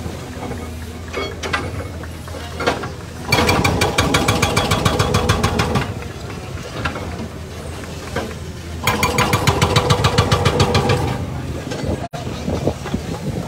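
Excavator-mounted hydraulic breaker hammering on old railway track in two bursts of rapid blows, each two to three seconds long. The excavator's diesel engine runs steadily in between.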